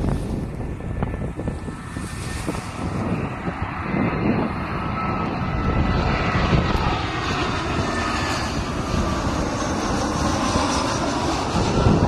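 Airbus A319-112 jet airliner on final approach, its CFM56 turbofan engines running with a steady loud rush and a whine that bends in pitch as it passes.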